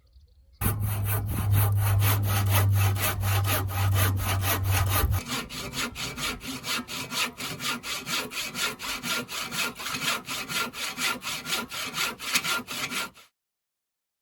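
A saw cutting through wood in quick back-and-forth strokes, about four a second, with a low hum under the first few seconds; it stops suddenly.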